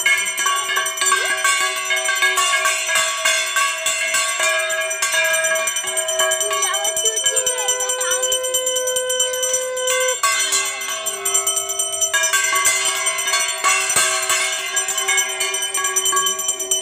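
Handheld brass puja bell (ghanta) rung rapidly and without a break during a Saraswati puja offering, over background music.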